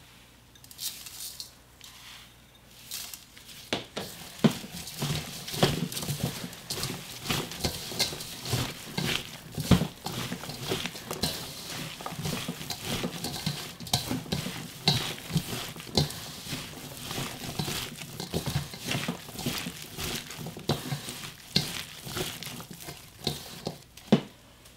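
A gloved hand tosses and rubs salted julienned Korean radish strips with red pepper powder (gochugaru) in a stainless steel bowl, making dense, irregular rustling and scraping against the bowl. After a few soft sounds, the mixing starts about four seconds in and keeps going until shortly before the end.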